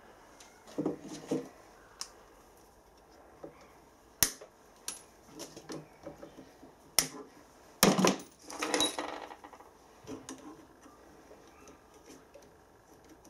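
Small metallic clicks and taps from pliers working a steel split pin through a castle nut and bending its legs over. A handful of sharp clicks come irregularly, the loudest about eight seconds in, with some handling rustle in between.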